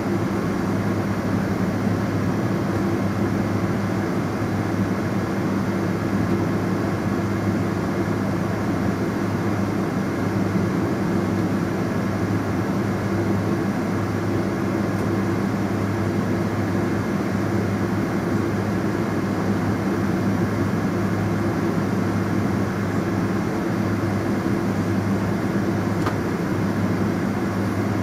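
Cabin noise of a Boeing 777-300ER with its GE90-115B turbofan at idle: a steady hum with a few low droning tones, heard through the cabin wall by the wing.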